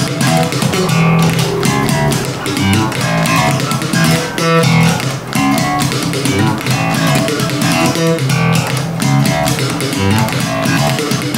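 Elegee Alab Series passive five-string Jazz bass played fingerstyle through a small practice amp: a continuous run of plucked notes.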